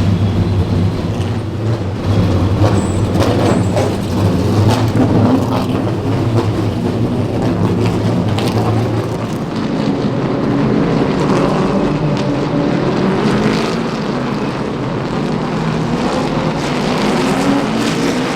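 Late model race cars running at speed on the short track, a loud continuous engine drone whose pitch and tone shift about halfway through.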